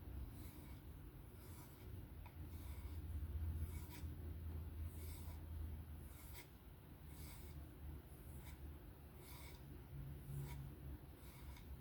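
Knife blade being stroked along a strop, a soft rhythmic swish about every 0.7 seconds.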